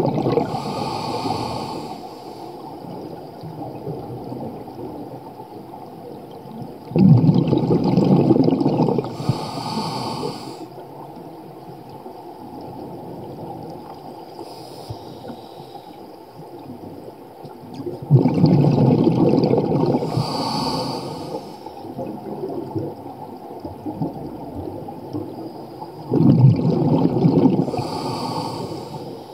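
Scuba diver breathing through a regulator underwater: three loud gushes of exhaled bubbles, roughly ten seconds apart, each ending in a short regulator hiss, with a quieter watery hiss between breaths.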